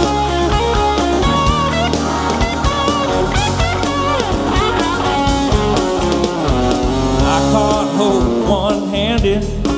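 Live rock band playing an instrumental break: a lead guitar plays notes that bend and waver, over the bass and drums of the full band.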